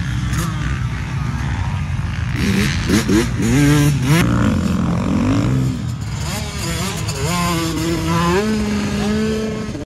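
Motocross dirt bike engines revving as the bikes ride the track, the pitch climbing and dropping repeatedly as riders accelerate through a corner and shift gear.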